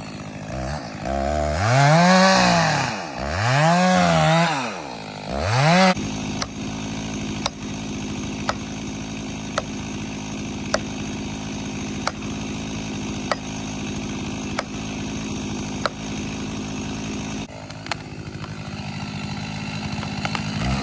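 Chainsaw revved up and let back down three times in quick succession, then left running steadily at a lower speed, with a sharp tick about once a second, during the felling cut on a large tree.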